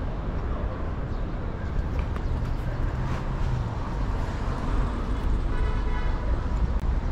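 City street traffic: a steady rumble of passing cars and other vehicles, with a brief pitched sound a little before the end.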